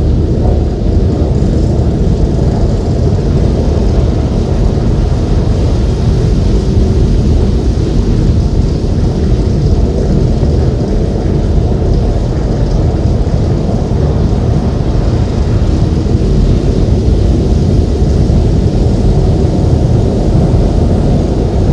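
Noise-music piece played loud over PA loudspeakers: a dense, steady, deep rumble of noise with no breaks, heaviest in the bass.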